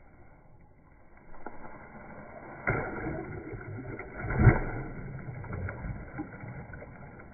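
Muffled knocks and rustling, with a sharp knock a little under three seconds in and the loudest thump about four and a half seconds in.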